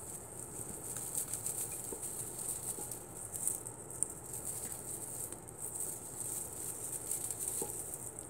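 Crinkly rustling and swishing of a feathered, tinselled cat wand toy being waved over a kitten, in quick irregular strokes.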